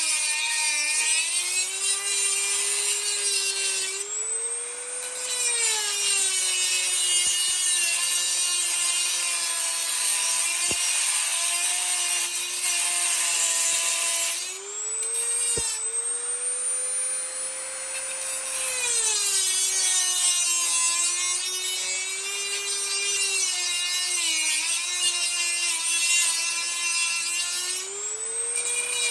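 Dremel rotary tool with a cut-off wheel grinding through a metal push nut cap on a hand truck axle. The motor whines steadily, its pitch sagging under load and rising a few times as the wheel eases off the cut.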